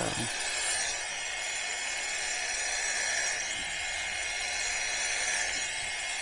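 Electric dog clippers fitted with a 5F blade running steadily while shearing a Bedlington terrier's body coat against the grain: a steady high-pitched whine with a hiss of cut hair.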